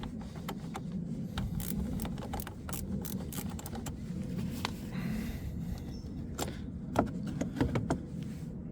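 Scattered light metallic clicks and jangles of hand tools at a car battery terminal as the battery is disconnected, over a steady low background rumble.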